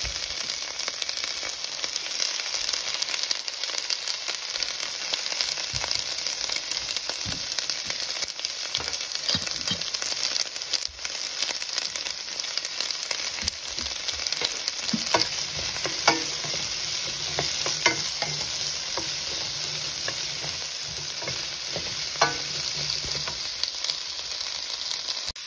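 Asparagus sizzling in hot oil in a deep stainless steel pan, stirred with a wooden spoon that knocks against the pan a few times.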